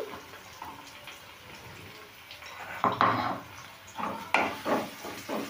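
A spatula scraping and knocking against a non-stick kadhai as chopped onions are stirred into hot oil. A faint frying hiss comes first; the stirring strokes start about halfway through and come about three a second near the end.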